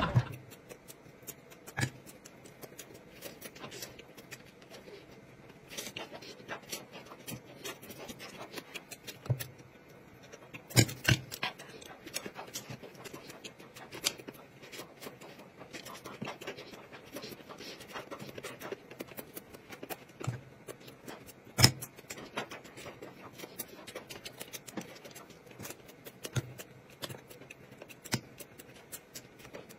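Close-up eating sounds: quiet chewing and mouth noises from someone eating a soft bun, with scattered small clicks and taps, the sharpest about 11 and 22 seconds in.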